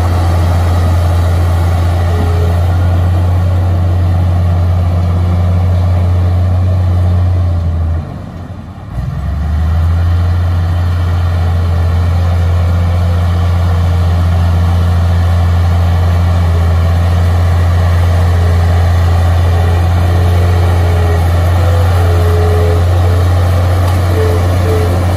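Komatsu D53A crawler bulldozer's diesel engine running steadily under load as it pushes dirt, dropping away briefly about eight seconds in. A few short squeaks come near the end.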